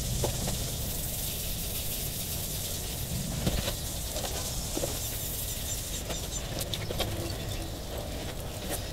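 Abrasive Scotch-Brite pad rubbed by hand over a fiberglass boat hull, a steady scrubbing noise as it sands off oxidized gelcoat.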